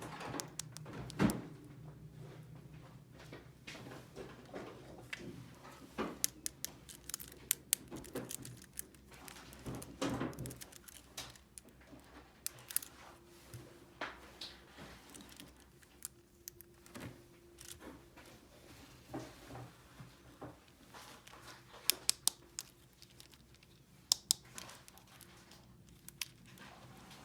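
Small plastic toy pieces being handled by hand: scattered sharp clicks and taps as parts are picked up, fitted and set down, with some crinkling of packaging. There are quick pairs of clicks about three-quarters of the way through.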